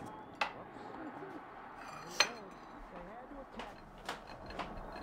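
Glassware handled on a table: a bottle capped and set down and drinking glasses picked up, with one sharp clink about two seconds in that rings briefly, then a few lighter knocks.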